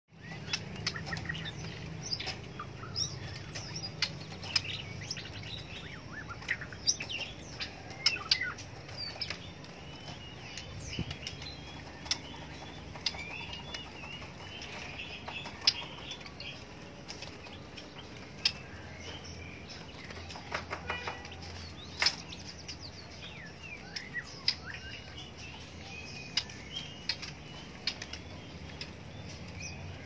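Caged white-rumped shamas (murai batu) chirping and whistling in short phrases, with frequent sharp clicks and wing flutters from the cages, over a faint steady low hum.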